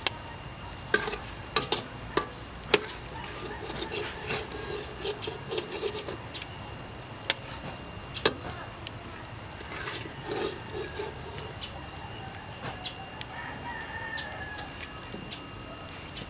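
Chickens clucking, with a rooster crowing, over a few sharp metal clicks and scrapes from a wok as fried eel pieces are lifted out of it.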